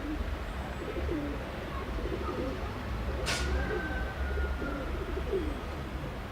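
Domestic pigeons cooing repeatedly, with a low wind rumble on the microphone. One sharp click sounds about three seconds in.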